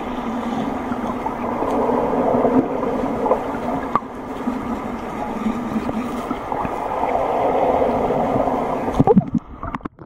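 Muffled droning and humming recorded with the camera underwater: a person's voice through the water, the noise she makes as fish nibble at her hand. It swells and fades in waves and cuts off near the end.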